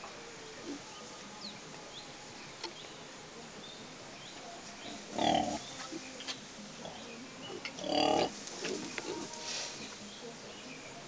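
Pigs in a sty calling loudly twice, each call lasting about half a second and coming about two and a half seconds apart, with quieter rustling and small sounds between.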